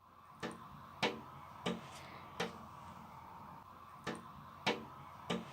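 Male chaffinch tapping the window glass: seven sharp taps, four about half a second apart, a pause, then three more. It is fighting its own reflection, taking it for a rival male on its territory.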